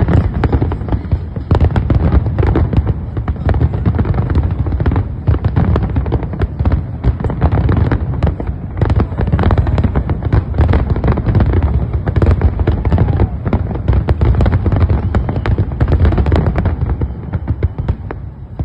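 Fireworks display: a loud, dense barrage of rapid, overlapping bangs that eases off near the end.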